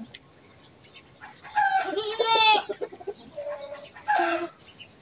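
Chickens calling: a series of loud squawking calls, the longest and loudest about two seconds in, followed by two shorter calls.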